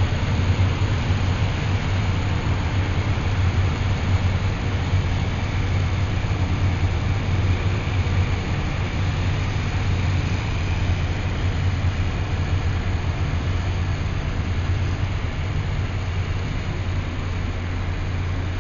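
Canadian Pacific track repair train passing at close range, a steady loud low rumble with a noisy hiss over it, easing off slightly near the end.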